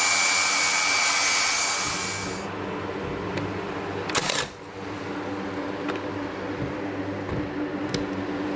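Electric power tool running with a steady high whine, stopping about two and a half seconds in; then a low steady hum, with a brief sharp noise about four seconds in.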